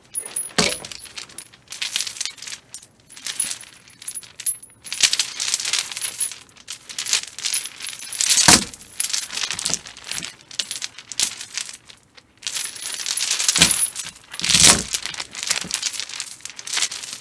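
A rattly metal chain being handled: its links rattle and clink in bursts, with a few heavier clanks about 8 seconds in and again near 14 seconds, and a brief lull about 12 seconds in.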